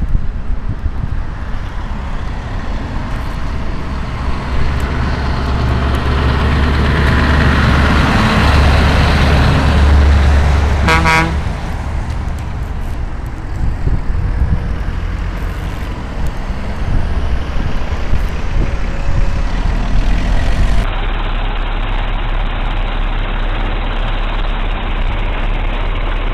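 Heavy truck driving past with its diesel engine rumbling, swelling as it comes by, and one short horn blast about eleven seconds in. Near the end a steady low engine hum takes over.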